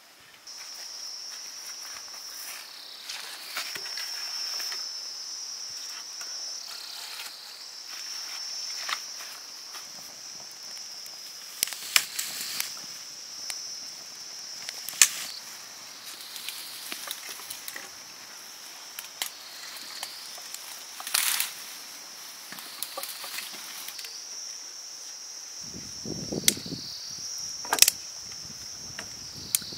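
A steady, high-pitched insect chorus that dips briefly in pitch every few seconds, with scattered sharp clicks and knocks over it.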